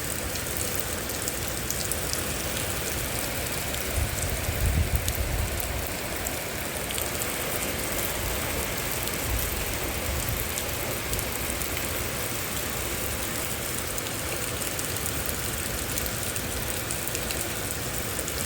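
Heavy rain pouring steadily, drops pattering on surfaces. A brief low rumble rises over it about four to six seconds in.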